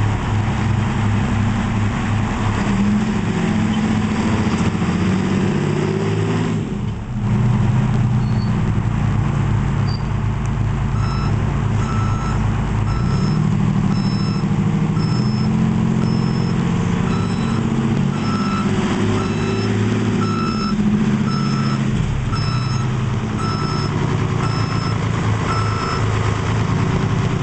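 Fire engine's Detroit Diesel 6-71 two-stroke diesel engine running and rising and falling in pitch as the truck manoeuvres. Partway through, its backup alarm starts beeping steadily, about once every 0.7 seconds, as the truck reverses.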